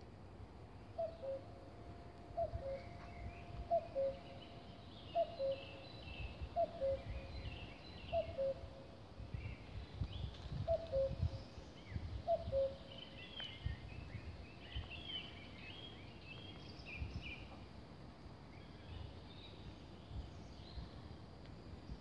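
Male common cuckoo calling its two-note "cuck-oo", the second note lower, about eight times at roughly one-and-a-half-second intervals, stopping about halfway through. Smaller birds chirp higher up, with low thumps underneath.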